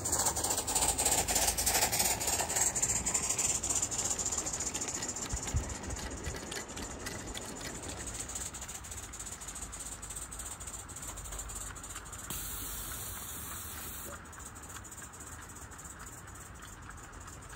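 O gauge live steam model of an LNER L1 tank locomotive running, with a steady steam hiss and fast, fine exhaust ticks. It fades gradually as the engine moves away.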